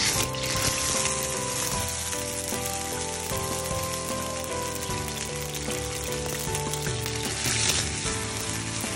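Wet blended paste sizzling in hot oil in a stainless steel wok as it is stirred with a slotted metal spatula. The sizzle swells briefly near the end.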